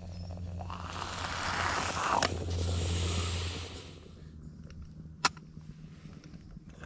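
Moka pot on a camping stove hissing and sputtering as the coffee finishes coming through, building for a few seconds and then cutting off about four seconds in. A single sharp click follows a little after five seconds.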